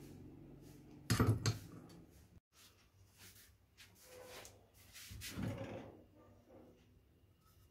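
Wooden hand plane and its steel blade being handled on a workbench: a quick pair of sharp knocks about a second in, then softer clicks, bumps and a scrape as the wooden plane body is picked up.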